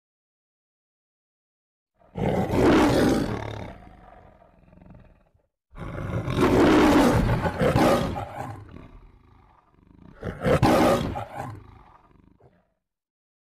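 The Metro-Goldwyn-Mayer logo's lion, Leo, roaring three times, starting about two seconds in. Each roar is loud at first and then trails off, and the third is the shortest.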